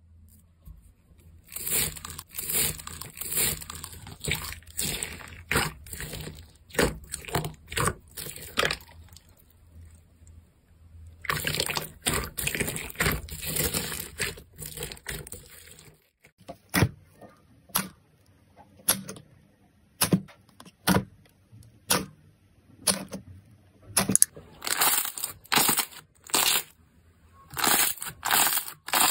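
Hands kneading and squeezing clear green slime packed with white foam beads, giving a dense crackling and crunching with a short pause in the middle. About halfway through this gives way to soft pink slime being pressed and folded, making separate wet pops about once a second, coming faster near the end.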